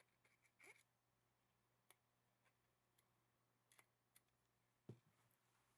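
Faint scattered clicks and ticks from a rifle bolt and a gun-oil bottle being handled while the bolt is oiled, with a soft knock near the end.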